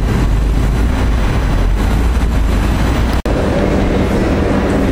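Loud, steady city traffic rumble at a street-side metro station entrance. It breaks off abruptly about three seconds in and gives way to the noise of the station interior at the top of an escalator, with a steady low hum.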